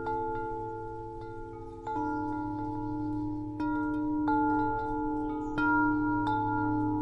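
Wind chimes ringing, struck at uneven intervals about every half second to a second and a half, their tones overlapping and lingering, over a steady low hum.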